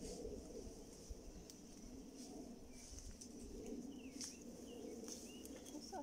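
Quiet forest ambience: a few short bird chirps in the second half, over a soft rustle of leaves and branches as Colchis bladdernut flower clusters are picked by hand.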